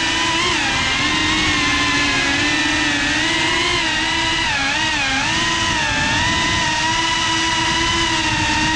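FPV quadcopter's motors and propellers whining steadily, heard from the GoPro on board. The pitch wavers up and down with the throttle and dips briefly about halfway through.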